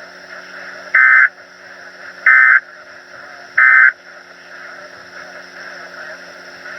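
Three short, identical bursts of warbling digital data tones from a weather radio broadcast, about a third of a second each and a little over a second apart, with a steady low hum underneath. The pattern is that of the SAME alert data code sent three times, the end-of-message signal that follows an emergency alert.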